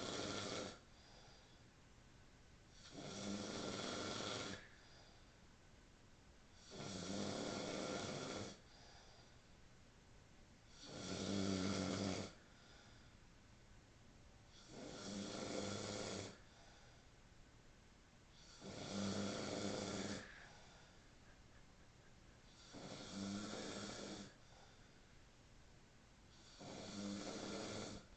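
Someone asleep snoring, one long, rasping, pitched snore about every four seconds: seven snores plus the tail of one at the start, with faint breathing between them.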